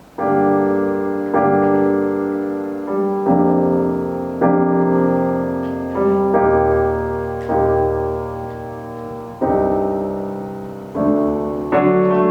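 Solo piano introduction to a slow song: sustained chords struck every one to two seconds, each fading away before the next.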